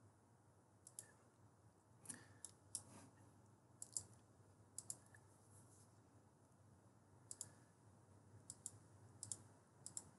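Faint computer mouse clicks, about a dozen at irregular intervals, several coming in quick pairs, over a faint steady low hum.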